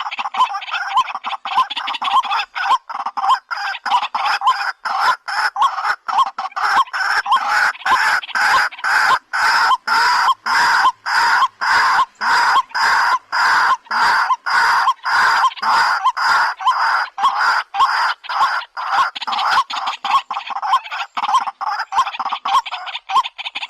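A bird calling over and over in a steady rhythm, about two harsh, clucking notes a second.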